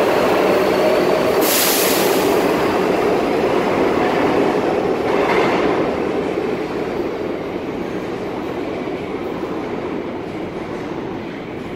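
Kawasaki R62 subway train pulling out of the station, its cars running past on the rails, with a brief high burst of noise about a second and a half in. The sound fades as the train draws away into the tunnel.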